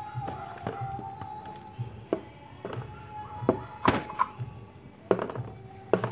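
Brass incense-burner parts being handled and scrubbed over a plastic basin, giving a series of sharp knocks and clinks, the loudest about four seconds in, over background music with a steady beat.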